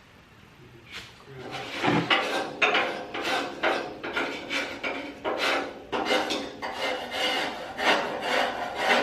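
Rapid back-and-forth scrubbing strokes of a hand brush on the radial arm saw's table, about two or three strokes a second, starting about a second and a half in.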